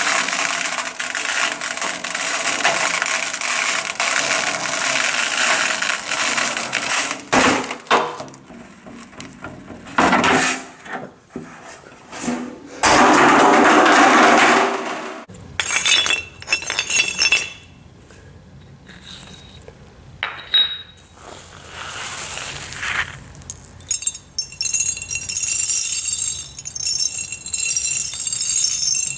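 Tiny aquarium gravel substrate being handled, many small pebbles rattling and clinking together. A long continuous stretch gives way to shorter bursts with quieter gaps, and a bright jingly clinking returns near the end.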